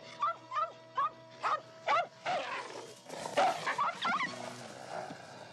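A series of short, rising animal calls, several a second, over background music with sustained tones; a few louder, rougher calls come in the middle.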